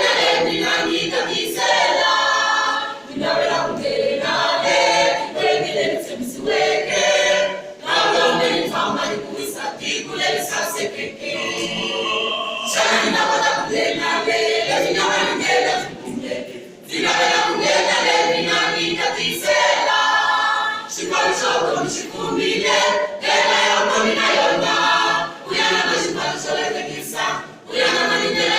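A choir singing a gospel song unaccompanied, in phrases with short breaths between them.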